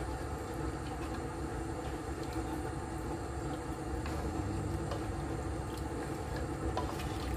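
Steady low hum of an induction cooktop running under a pot of stew as it is stirred with a spoon, with a few faint knocks of the spoon against the pot.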